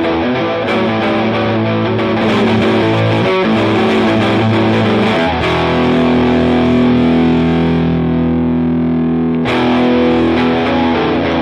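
Electric guitar played through a JOYO R21 overdrive pedal with its boost turned all the way up, giving a distorted tone. It plays riffs, then lets a chord ring for about four seconds past the middle, then riffs again.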